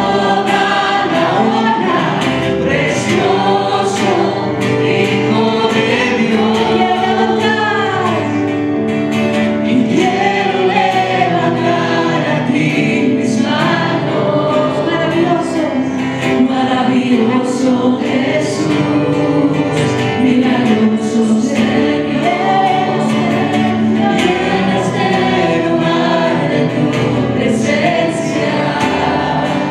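Church choir singing a gospel song with instrumental accompaniment and a steady beat.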